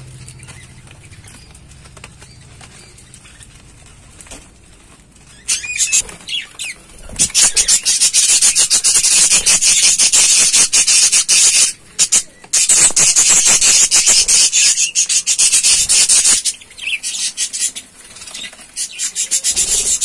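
Flock of budgerigars chattering: a few high chirps about five seconds in, then a loud, dense, high-pitched chatter for about nine seconds that thins out near the end.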